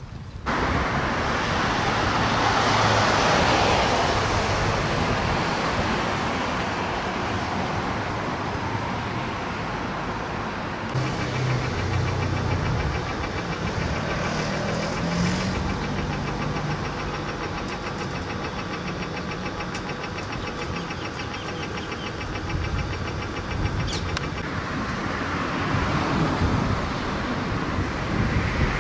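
Street traffic: cars passing on a road, the noise swelling as they go by. Through the middle stretch a vehicle engine runs steadily with an even pulse.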